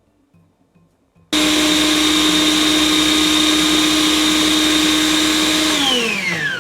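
Electric blender switched on about a second in, running steadily at one pitch while blending a marinade spice paste (nokoss). Near the end it is switched off and its pitch falls as it spins down.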